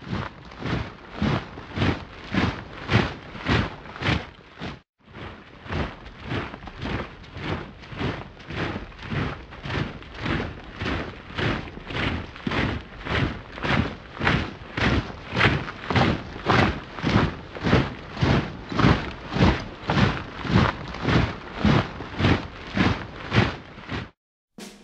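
A column of soldiers marching in step: heavy boot footfalls in unison, about two a second, with a short break about five seconds in.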